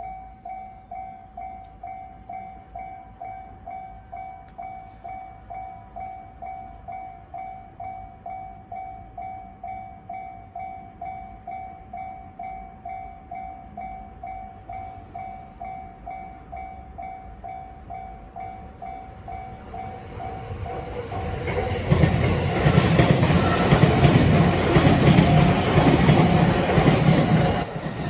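Japanese railway crossing alarm ringing steadily, about two strokes a second. About twenty seconds in, a train comes up and passes loudly for about six seconds, drowning out the bell, then the noise drops off sharply near the end.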